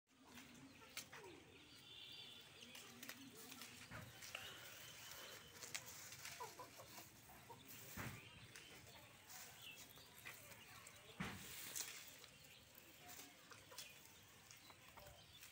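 Faint rustling and snapping of cut grass blades as young goats tear at the fodder pile and chew, with a hen clucking softly now and then.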